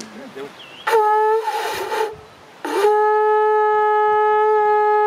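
Conch shell horn blown twice: a short blast about a second in, then a long steady blast held for over two seconds, the signal that starts the race.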